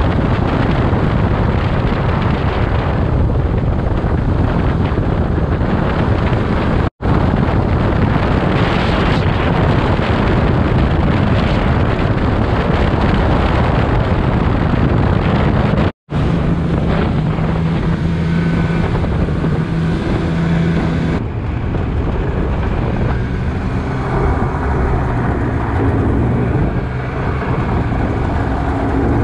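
Snowmobile running along a trail at speed, engine and track noise mixed with wind buffeting the microphone. The sound cuts out completely for an instant twice, and after the second gap a steady engine note stands out for several seconds.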